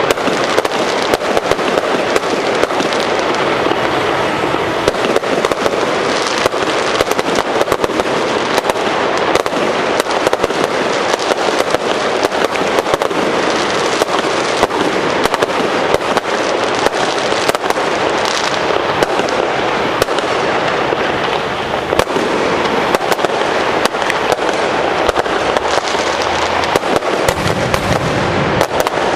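Fireworks crackling and popping in a dense, unbroken stream of sharp reports.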